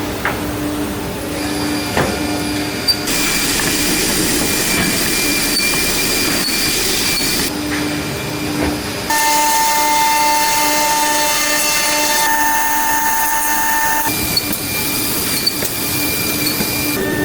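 CNC woodworking machine running and cutting: a steady high hiss with a whining spindle tone. The sound changes abruptly several times, with a stronger, steadier whine in the middle stretch.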